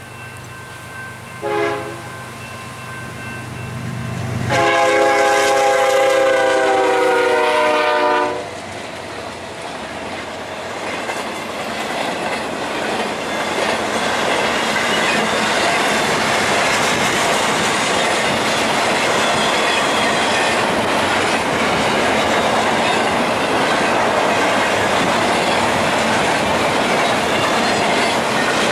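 A freight diesel locomotive's multi-chime air horn sounds a short blast about a second and a half in, then a long blast of about four seconds, the closing short-and-long of a grade-crossing signal. The BNSF intermodal freight train then rolls past, its wheels rushing and clacking on the rails, growing louder and then holding steady.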